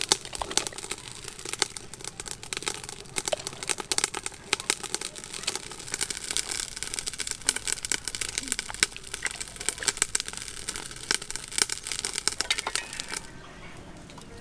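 Dense, irregular crackling and popping from the pot boiling over its cooking fire. It stops abruptly near the end.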